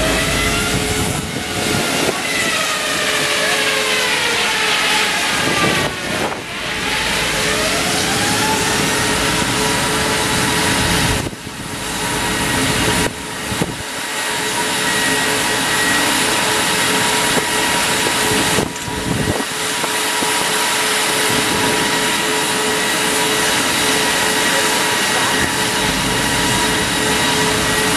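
Diamond wire saw cutting: the drive and wire pulleys run with a whine and the hiss of cooling water spraying off the wire. The whine falls in pitch over the first few seconds, then rises about seven seconds in and holds a steady tone, with a few abrupt breaks in the sound.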